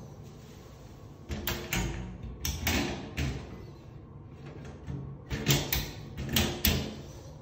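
Small inspection hatch in a tiled bath panel being pulled open with a run of clicks and knocks, then pushed shut with another run of knocks after about five seconds.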